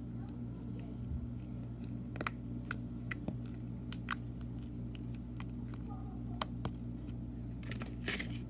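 White slime squeezed and poked by hand, giving scattered small clicks and pops, over a steady low hum.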